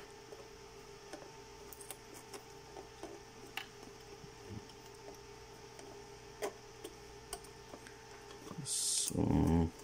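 Faint scattered clicks and light plastic taps as cable connectors are handled and fitted onto a ventilator's circuit board, over a steady faint hum. Near the end comes a short hiss and then a brief, louder voice-like sound.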